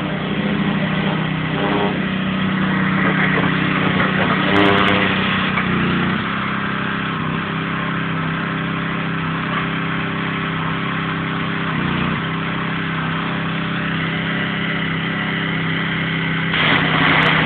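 Pressure washer running: a steady engine drone under the hiss of water spraying from the wand, a little louder in the first few seconds.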